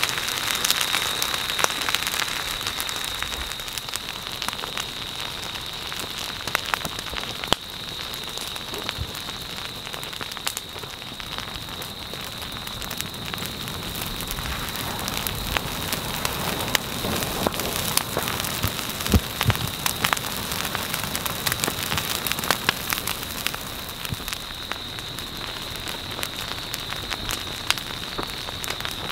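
Ferns and undergrowth burning where a lava flow reaches them: a dense, continuous crackling and popping of burning vegetation over a steady hiss. A steady high whine runs underneath.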